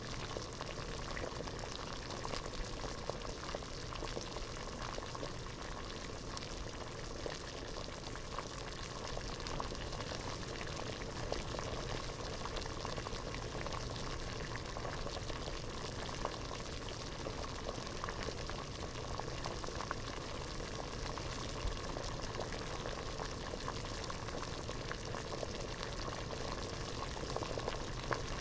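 Pot of water at a rolling boil, a steady dense bubbling with many small pops and crackles.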